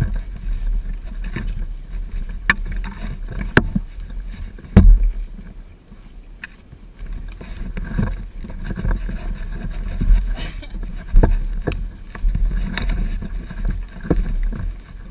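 Low rumble and handling noise on a body-worn action camera's microphone, broken by scattered knocks and clicks, with one loud thump about five seconds in.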